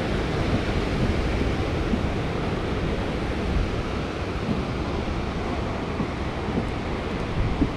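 Ocean surf breaking on a sandy beach, a steady rush, mixed with wind rumbling on the microphone.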